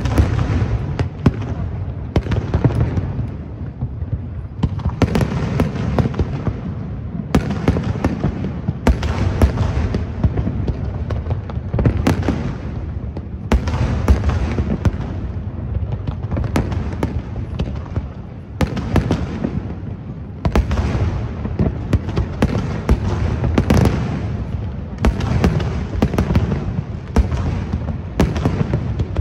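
Fireworks display: a continuous barrage of deep booms and sharp crackling bursts, swelling in waves every second or two.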